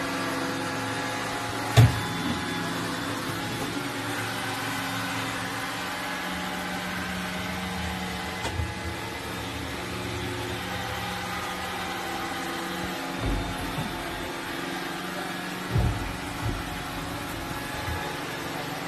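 A steady low machine hum runs throughout. A sharp knock comes about two seconds in, and two dull thumps come near the end, as a cat clambers down off a leather armchair onto the floor.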